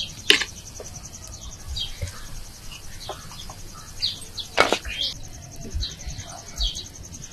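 A wooden spoon stirring and scraping in a clay pot, with two sharper knocks against the pot, about a third of a second in and near the middle. A steady high insect trill and scattered short bird chirps run underneath.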